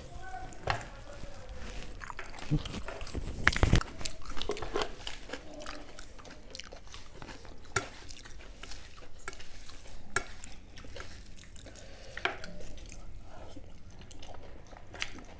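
Close-up eating sounds: chewing and rice being mixed by hand on a plate, with scattered small clicks and crunches and a louder cluster of knocks about three and a half seconds in.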